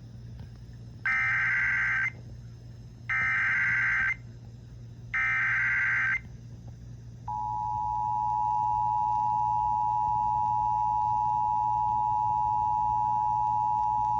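Emergency Alert System header: three bursts of SAME digital data tones, each about a second long, then about seven seconds in the steady two-tone EAS attention signal (853 and 960 Hz) starts and holds. The sequence opens an alert that here carries a flash flood warning.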